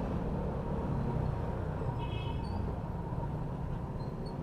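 Steady low rumble of a motorbike ride picked up by a helmet-mounted microphone: engine, road and wind noise. There is a brief, faint high squeal about halfway through.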